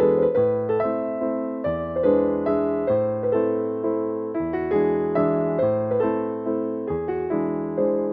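Background piano music: a gentle melody of struck notes over a low bass note that changes every couple of seconds.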